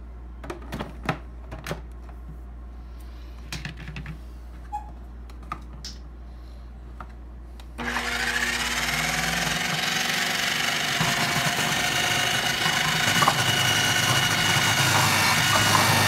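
Plastic clicks and knocks as the lid and feed tube of a KitchenAid food processor are fitted into place, then about eight seconds in the motor starts suddenly and runs steadily, shredding vegetables through the shredding disc and growing a little louder toward the end.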